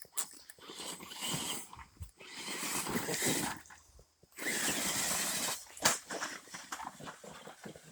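Radio-controlled truck being driven: its electric motor and drivetrain run in two main spells, with scattered clicks, while the rear axle turns a 3D-printed drive shaft.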